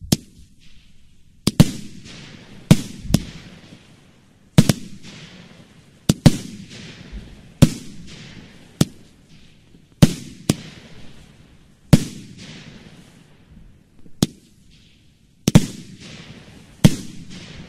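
Volksfeuerwerk Gräte Thunfisch, a 9-shot 20 mm F2 fireworks battery, firing: sharp launch and burst reports every second or two, some coming in quick pairs, each followed by a fading hiss.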